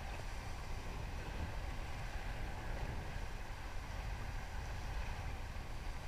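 Steady rush of river water around a paddled raft, with wind buffeting the microphone.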